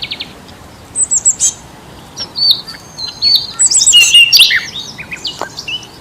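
Several songbirds chirping and calling at once. A fast even trill ends just after the start, then bursts of high, varied chirps and short whistles come in overlapping phrases.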